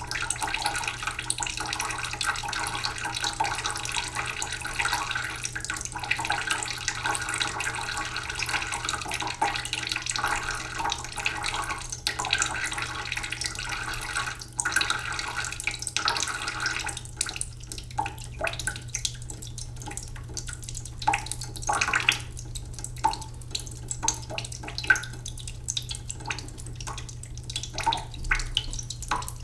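Water from a kitchen tap running slowly into a cooking pot in a sink. For the first half it is a steady trickle, then about halfway through it thins into separate drips and small splashes.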